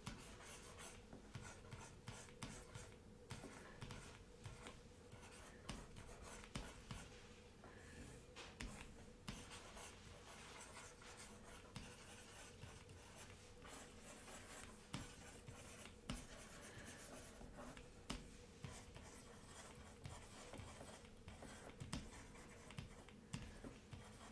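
Faint scratching and light tapping of a stylus on a drawing tablet as brush strokes are painted, with a faint steady hum underneath.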